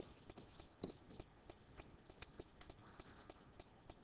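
Faint, quick ticks and scratches, several a second, from a stylus writing on a digital screen, heard over near-silent room tone.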